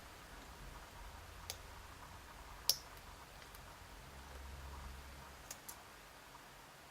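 Small, sharp clicks of a lock pick working the pins of an Abus E60 lock under light tension. There are a handful of faint clicks, the loudest a little under three seconds in and two close together near the end.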